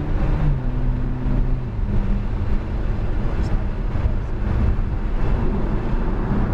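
Nissan GT-R's twin-turbo V6 pulling under throttle, heard from inside the cabin over heavy road and wind noise.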